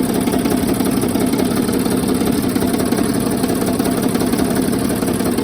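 Mercedes OM642 3.0-litre V6 turbodiesel in a 2007 Sprinter running steadily at idle with the accessory belt off, with a rapid knocking and tapping. The owner places the knock on the left bank, cylinders 4 through 5, of a well-used, poorly maintained engine.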